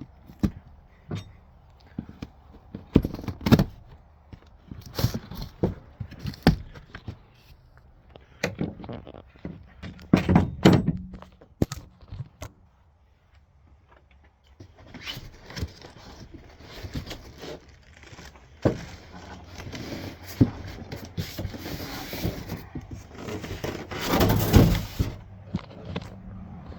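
A new compound miter saw being unboxed: scattered knocks and thunks as the box and packing pieces are handled, then, after a brief pause, a longer stretch of rustling and scraping packaging that grows loudest near the end.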